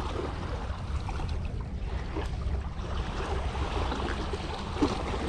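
Lake water lapping against a rocky shoreline, with a steady low rumble of wind on the microphone and a few faint small ticks.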